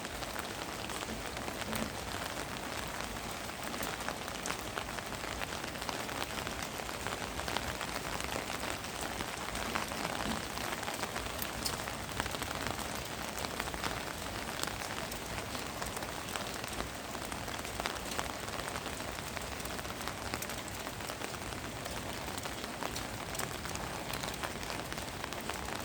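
Winter rain falling steadily, a dense even hiss with many individual drops ticking on a hard surface.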